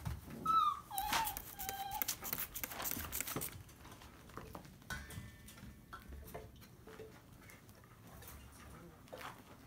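A puppy gives short high yelps and whimpers over the first two seconds, over several quick hissing squirts from a hand spray bottle aimed to stop its biting. After that there is only faint scuffling of puppies.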